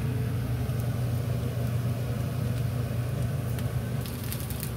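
Vegetable pancake frying in a nonstick pan over a gas burner, with faint sizzling and crackling that picks up near the end, under a steady low hum.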